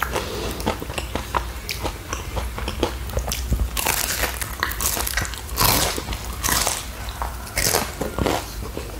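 Close-miked biting and chewing of a McDonald's Black Forest pie, the pastry crunching with the chews; louder crunches come in the second half.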